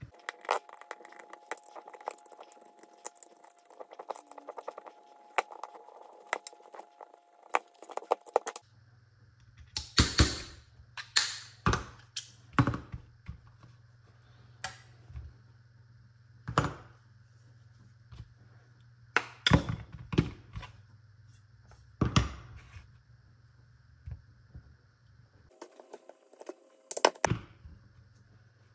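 Metal hand tools clicking and scraping on a side-by-side shotgun's forend, then a dozen or so sharp hammer taps on a pin punch, spaced irregularly a second or more apart, driving pins out of the forend iron during disassembly.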